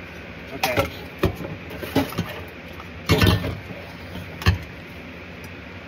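Handling noise from diesel heater parts and wiring plugs: about half a dozen sharp clicks and knocks, the loudest cluster a little past three seconds in, over a steady low hum.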